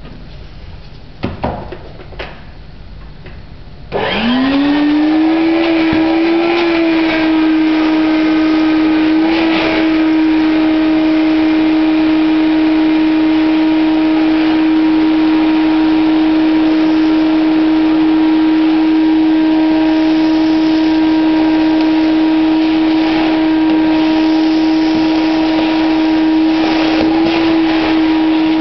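A few knocks, then about four seconds in a Numatic Henry HVC200 vacuum cleaner is switched on: its motor whines up in pitch and settles into a loud, steady whine with several higher tones over it. It sounds awful, which the owner puts down to very dry, worn motor bearings.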